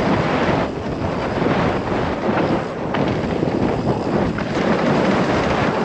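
Wind rushing over the microphone and mountain-bike tyres rumbling over a dirt singletrack on a fast descent, a steady, loud rushing noise.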